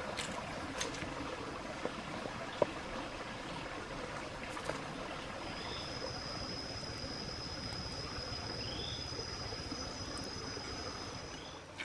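Steady rushing of a shallow rocky stream, with a few faint clicks, and a thin steady high tone joining about halfway through.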